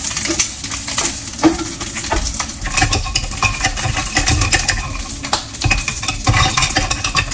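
An omelette frying in a pan: a steady sizzle with many scattered light clicks while the folded omelette browns.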